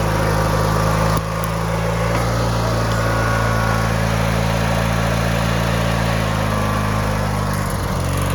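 Riding lawn mower engine running steadily while the mower is driven off-road. It drops slightly in loudness about a second in, and its pitch sags briefly near the end.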